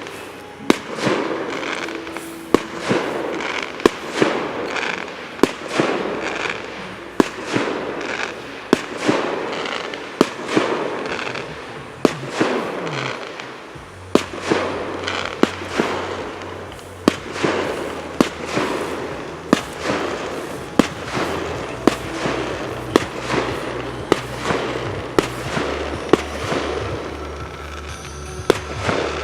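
Fireworks going off in a steady run, a sharp bang a little more than once a second, each followed by crackling. A low steady hum joins in about halfway.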